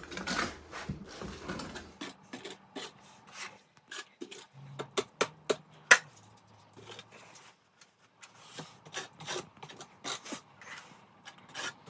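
Drywall knife scraping and tapping as joint compound is worked onto new drywall to texture it: a run of short, irregular scrapes and clicks.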